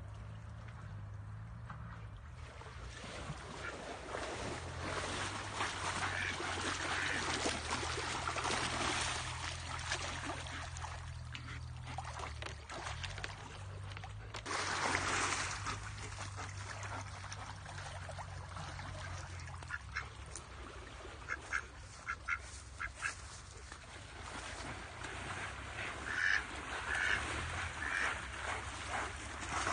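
A duck quacking in short repeated bursts, in clusters near the end, over the rush of moving water with one louder surge of water noise about halfway.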